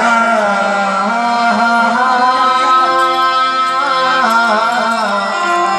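Gujarati devotional song: a singer holds one long wavering, ornamented note with no words, over a steady sustained instrumental drone.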